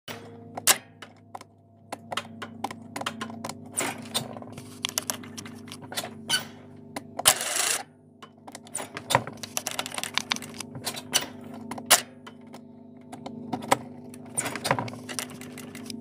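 Irregular metal clicks, taps and squeaks of a wrench working at the starter motor mounting of a 19 HP Kohler lawn tractor engine, with a short scraping rush about halfway through, over a steady low hum.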